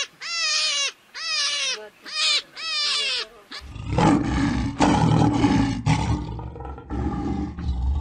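A series of four short, high-pitched calls, each gliding down at its end. A little before halfway a lion's deep, rough roar takes over and goes on.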